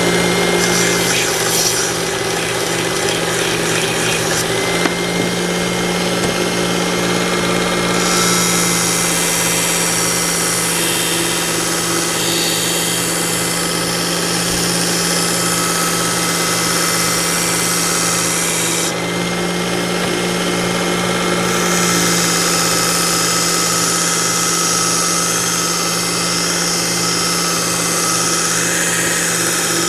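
Work Sharp electric belt knife sharpener running steadily at a lowered speed with its leather strop belt fitted, giving a constant motor hum. A higher hiss joins it for two long stretches, from about eight seconds in and again from about twenty-two seconds in.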